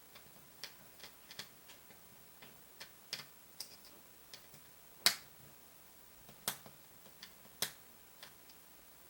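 Small, sharp, irregular clicks and ticks of a precision screwdriver and small metal parts on an iPhone's internals as the tiny screws of the display cable bracket are taken out. Three clicks in the second half are louder than the rest.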